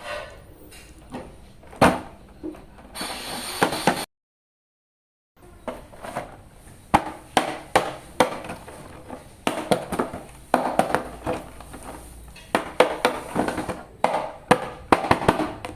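Plastic toy packaging and action figures being handled: a run of crinkles, taps and sharp clicks. There is about a second of dead silence a little after four seconds in.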